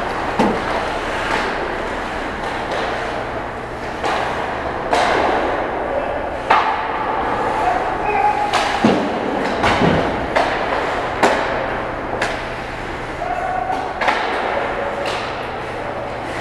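Amateur ice hockey play in an indoor rink: irregular sharp clacks of sticks and puck over the scrape of skates on ice, with players calling out, all echoing in the hall.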